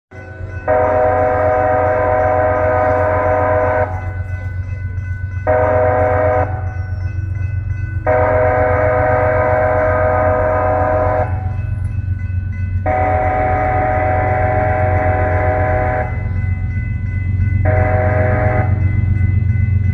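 Diesel locomotive's multi-chime air horn blowing a sequence of blasts: long, short, long, long, short, with another starting near the end. A steady low rumble of the train runs beneath it.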